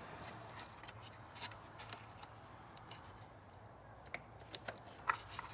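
Faint scattered clicks and ticks of a plastic fuel injector connector being handled as its retaining clip is worked off by hand, with a sharper click about five seconds in.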